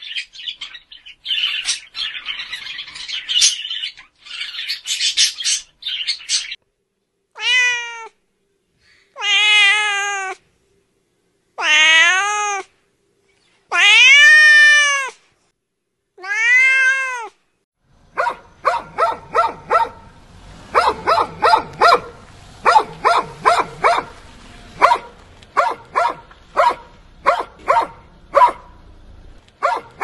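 A parrot squawks and chatters for the first six seconds or so. Then a cat gives five drawn-out meows, each rising and falling in pitch. From a little past the middle, a dog barks in quick, short barks, often in pairs, over a low hum.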